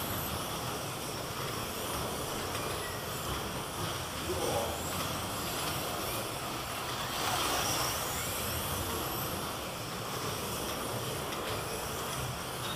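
Slot cars' small electric motors whining around the track, the pitch rising and falling again and again as the cars speed up and slow down, over a steady hiss.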